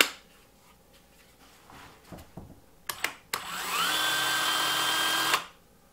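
A sharp click as the battery pack snaps into a Ryobi 18V cordless narrow-belt sander (power file). About three seconds in, the motor spins up with a rising whine, runs steadily with no load for about two seconds, then cuts off suddenly.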